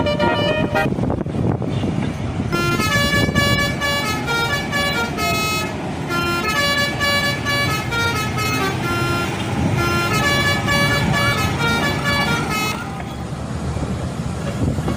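Indonesian bus telolet horn playing a quick melody of several stepping tones, briefly at first and then for about ten seconds before it stops, with a steady low rumble underneath.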